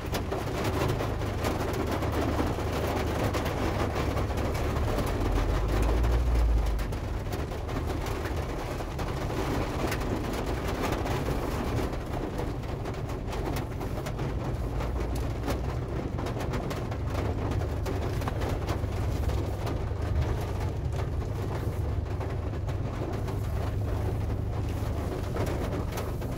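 Inside a car's cabin, driving in heavy rain: steady low engine and road rumble with rain hitting the roof and windshield.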